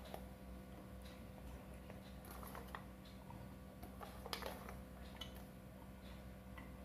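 Faint clinks and taps of sliced garlic cloves and green chillies being tipped from a steel bowl into a steel mixer-grinder jar, busiest about four seconds in, over a steady low hum.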